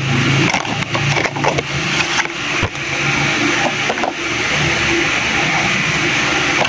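Cardboard Happy Meal box being handled and opened, crackling and crinkling with many small sharp clicks as a plush toy is pulled out.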